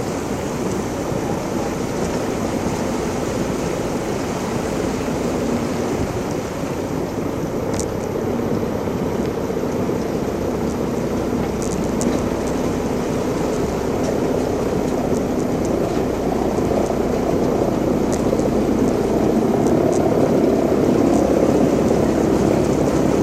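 An engine running steadily under a rushing noise, growing louder over the last several seconds, with a few faint clicks.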